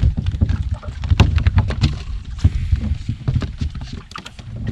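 Water slapping and knocking against a bass boat's hull, many irregular knocks over a low rumble of wind on the microphone.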